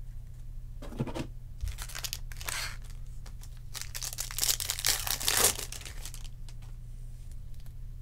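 A Topps Chrome jumbo foil card pack being torn open by hand and crinkled: short rustles about a second and two seconds in, then a longer, louder tearing and crinkling from about four to six seconds in, over a steady low hum.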